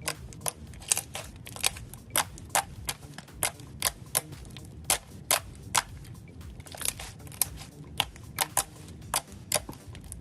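Glossy slime being pressed and stretched by hand, giving off sharp clicking pops at an irregular two or three a second.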